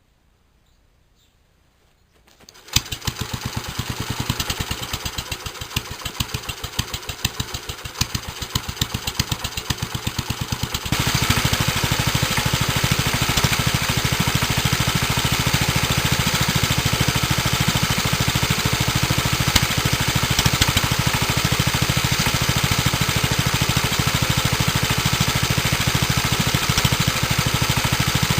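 A 1946 JAP Model 5 single-cylinder side-valve four-stroke stationary engine, its governor locked off, starts about two and a half seconds in and runs slowly with separate firing beats, then about eight seconds later picks up to a louder, faster, steady run.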